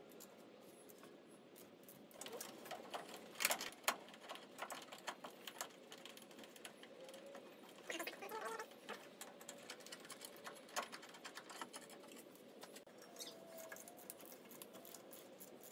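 Scattered light clicks and metal taps of a wrench and socket working the old power steering pump mounting bolts. A few sharper knocks come about three to four seconds in.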